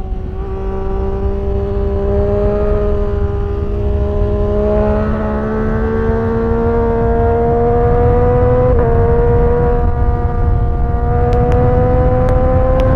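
Sport motorcycle engine heard from onboard, running hard at highway speed with its pitch climbing slowly as the bike accelerates, and a brief stutter in pitch about nine seconds in. Heavy wind rumble on the microphone underneath.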